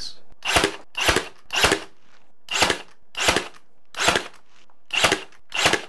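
Ryobi cordless brad nailer firing eight times, nailing plywood blocks onto a door frame: sharp single shots, irregularly spaced about half a second to a second apart.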